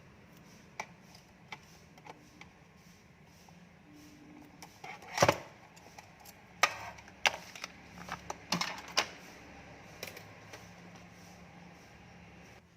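Irregular clicks and knocks of small hard objects being handled, a few scattered at first, the loudest about five seconds in and a cluster of sharper ones in the middle.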